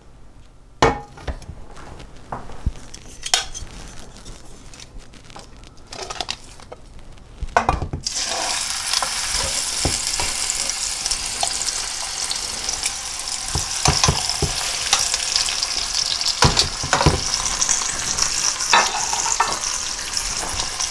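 A few light knocks and clicks over a quiet pan, then about eight seconds in, chuck steak laid into hot olive oil starts searing with a sudden, steady sizzle. Clicks of metal tongs sound over the sizzle.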